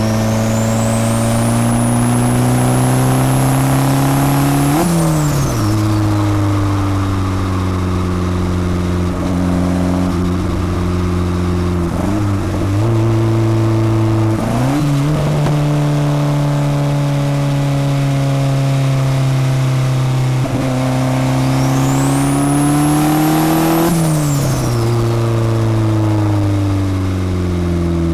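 Turbocharged Honda Civic D16 four-cylinder engine pulling under load several times, its note rising slowly each time and then dropping sharply. During the two long pulls, early on and near the end, a high turbo whistle climbs and holds, then falls away as the throttle closes. At those lift-offs the turbo flutters.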